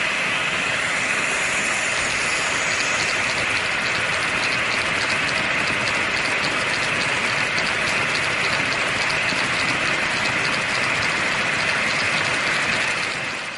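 HO-scale Märklin model trains running on the layout's track: a steady rolling rattle of metal wheels on rails, with a rapid, even clicking from about two seconds in as a long rake of freight wagons passes close by. The noise fades out near the end as the wagons clear.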